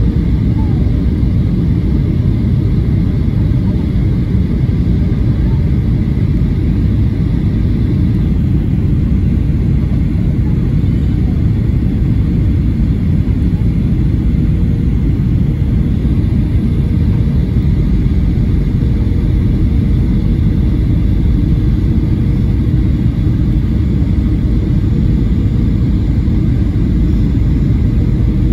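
Steady cabin noise inside a Boeing 737-800 on descent: the low rumble of the CFM56-7B turbofan engines and the airflow past the fuselage, with a faint steady hum on top.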